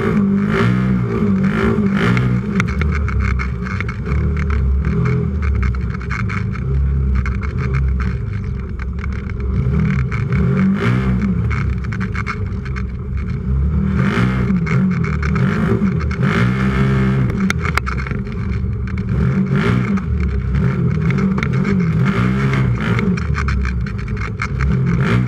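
Race UTV's engine heard from inside the cab, revving up and falling back over and over as the driver accelerates and lifts. Frequent sharp knocks and rattles come through as it runs over rough ground.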